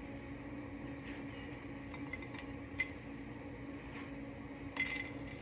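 Tortilla chips being arranged by hand on a plate: a few faint clicks and taps, the most noticeable near the end, over a steady background hum.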